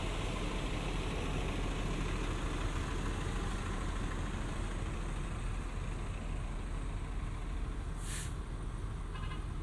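City street traffic: a steady low rumble of vehicle engines, with one brief hiss about eight seconds in.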